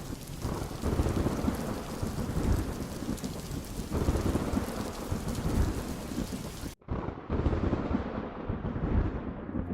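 Thunderstorm: steady heavy rain with rolling, rumbling thunder. Just before seven seconds in, the sound cuts out abruptly for a moment, then returns with a duller rain hiss.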